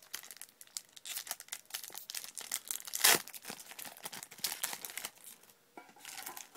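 Foil Yu-Gi-Oh booster pack wrapper crinkling as it is handled and torn open, with one louder rip about three seconds in.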